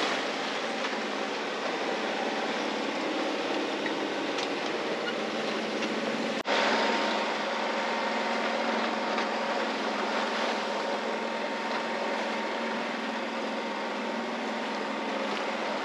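Sailboat motoring under its auxiliary diesel engine: a steady engine drone under the rush of water along the hull and wind, broken once by a short dip about six seconds in.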